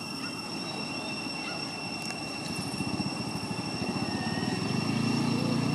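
A low engine rumble builds louder through the second half, as from a motor vehicle approaching. A steady high-pitched whine runs underneath throughout.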